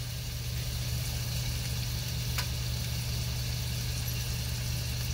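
Sliced sirloin steak sizzling in a frying pan over a portable gas stove, a steady hiss with one sharp click about two and a half seconds in, over a steady low hum.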